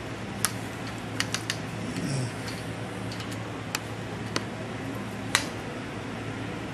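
A hand wrench tightening the steel thrust screws of a Weld+Ends pipeline coupling, making a handful of sharp, irregular metal clicks over a steady low hum. The screws are being run up in turn to squeeze the seals against the pipe.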